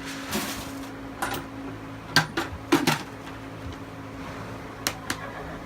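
Horse feed being dumped into a stall feeder: a short rush of falling grain near the start, then a handful of sharp knocks and clatters of the scoop and bucket. A steady low hum runs underneath.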